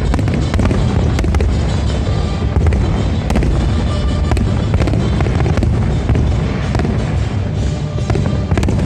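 Fireworks bursting in quick succession, sharp cracks one to three a second, over loud show music with a heavy bass.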